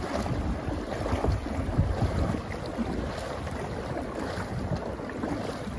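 Dragon boat paddles stroking through the water with splashing along the hull, and wind buffeting the microphone.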